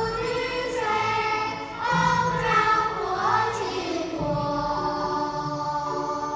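A group of voices singing a song together over music, with long held notes.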